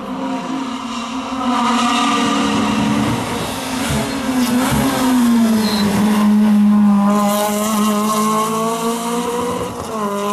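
Honda Civic F2000 rally car's four-cylinder engine at race revs as it comes through a hairpin. The note dips and wavers around the middle as the car slows for the bend, then climbs steadily over the last few seconds as it accelerates away.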